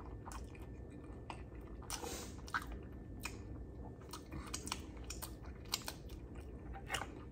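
A person chewing a mouthful of fried food close to the microphone: wet mouth clicks and soft crunches at irregular intervals.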